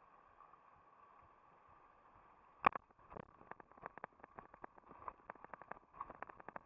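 Mountain bike rolling down a rough dirt trail: a faint steady hiss, then a sharp knock about two and a half seconds in, followed by rapid irregular rattling clicks as the bike runs over bumpy ground.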